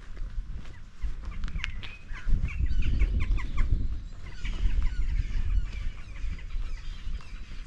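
Birds calling in a quick run of short calls for a few seconds, then more scattered calls, over a low rumble of footsteps and wind on the microphone.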